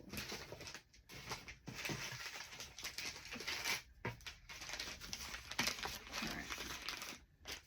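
Rustling and crinkling of packaging and loose packing foam as items are handled and lifted out of a box, in irregular bursts with brief pauses.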